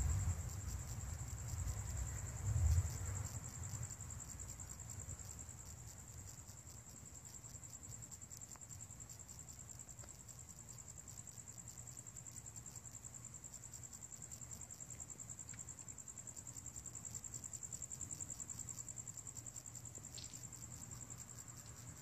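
Night insects, crickets, trilling in a steady high-pitched chorus. A low rumble, the loudest sound, fills the first few seconds, swells once more near three seconds in, then fades away.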